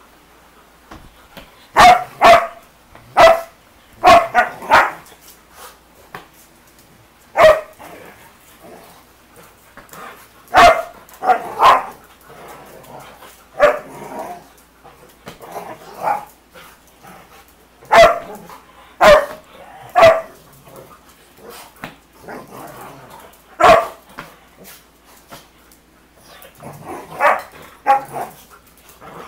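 Dogs barking while they wrestle in rough play: short, sharp barks come at irregular intervals, often two or three in quick succession, with quieter sounds in between.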